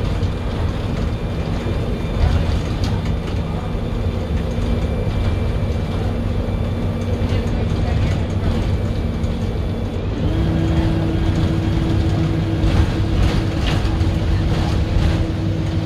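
Cabin noise aboard a moving MAN 18.240LF Alexander ALX300 single-deck bus: its diesel engine and drivetrain running under a steady road rumble, with a whine that steps up in pitch about ten seconds in. Light rattles and clicks come from the bus body.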